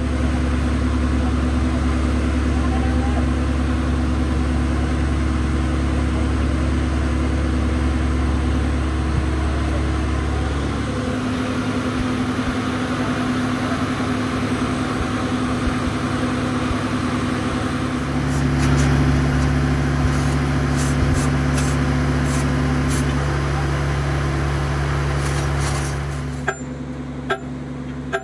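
A steady low engine or motor hum with voices in the background, its pitch shifting a couple of times. Near the end the hum drops away and a few sharp hammer blows strike the flywheel.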